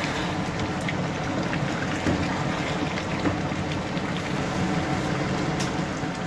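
Watery minced-meat and potato curry boiling in a steel pot, with small bubbles popping over a steady low rumble.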